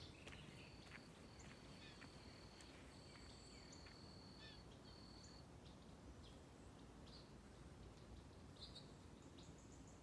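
Faint birdsong in woodland: scattered short chirps and calls, with long, steady, high held notes repeated through the first half and a quick run of short high notes near the end.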